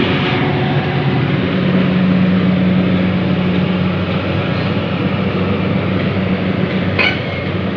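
Heavy diesel engine running steadily at an even speed, with a deep constant hum. There is a brief sharp noise about seven seconds in.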